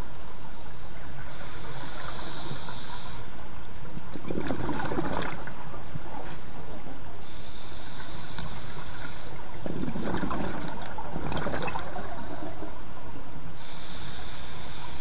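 Scuba diver breathing underwater through a regulator: three hissing inhalations of about two seconds each, alternating with two bubbling exhalations, in a slow, even cycle.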